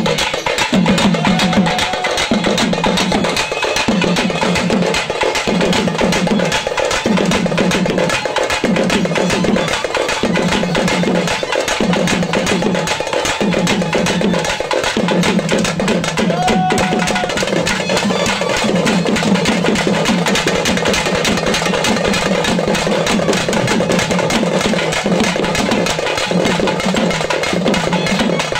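Live Tamil folk music: fast, steady thavil drumming struck with a stick, with a clarinet playing the melody over a low note that pulses about once a second.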